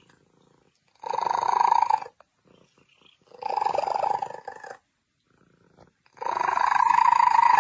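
A cat vocalizing: three long, loud calls in a row, each lasting a second or more with short pauses between.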